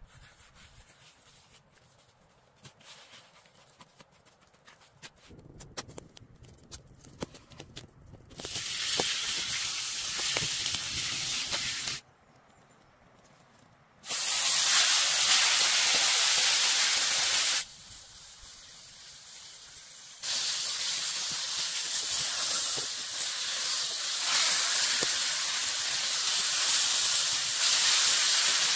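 Thick cuts of meat sizzling loudly in hot oil in a cast iron skillet. The sizzle starts about a third of the way in and cuts off and back on twice. Before it comes a quieter stretch of light taps and clicks while the raw meat is handled.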